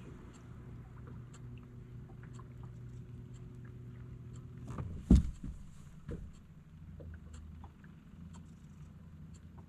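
Boat motor running with a steady hum; a single loud knock about five seconds in, after which the motor's note drops lower. Small scattered ticks throughout.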